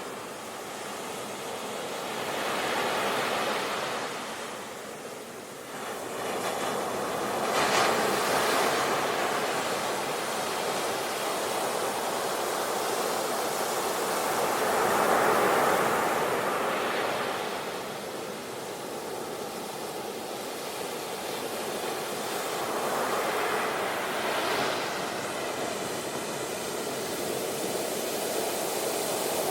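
Sea waves breaking and washing onto the shore. The surf swells louder and eases every few seconds, with a sharp surge about a quarter of the way in.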